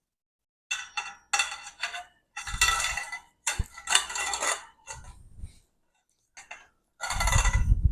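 Metal parts of a tool-free shelving unit clanking and rattling as the legs and shelf frames are handled and fitted together, in about seven short bursts with a ringing metallic tone.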